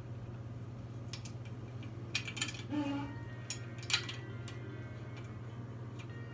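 Light metallic clicks and clinks from parts and hardware being handled while a metal stand is assembled by hand, with a cluster of sharper clinks between about two and four seconds in. A steady low hum runs underneath.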